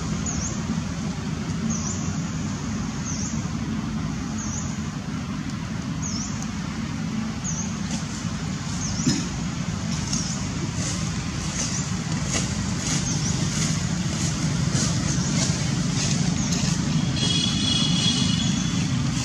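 Steady low rumble of road traffic, with a short high chirp repeating about every second and a half in the first half, a single knock about nine seconds in, and a brief high trill near the end.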